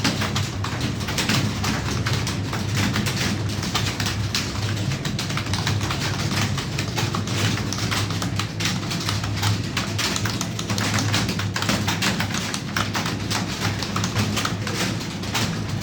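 Computer keyboard being typed on fast and continuously, a rapid run of key clicks over a steady low hum.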